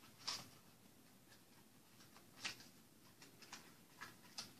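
Faint plastic clicks and crackles of a Hot Wheels blister pack being pried open by hand: a single sharp click early, another about halfway, then a quick run of small clicks near the end. The package is stubborn to open.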